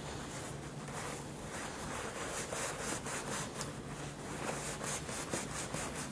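Paper towel rubbing and rustling against a metal transmission drain bolt as grime is wiped off it, in a run of short scratchy strokes.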